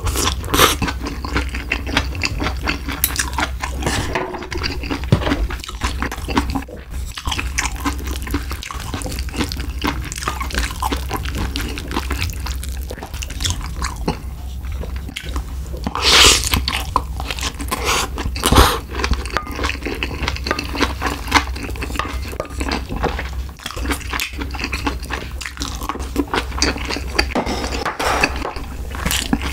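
Close-miked wet chewing and mouth sounds of a person eating spicy stir-fried pork with rice, with chopsticks and a spoon clicking against a stainless steel rice bowl. A few sharper, louder clicks stand out around the middle.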